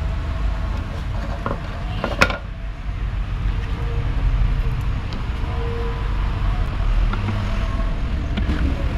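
Hands handling and twisting an LED headlight bulb into a motorcycle's headlight holder, with one sharp click about two seconds in and a few faint ticks, over a steady low rumble.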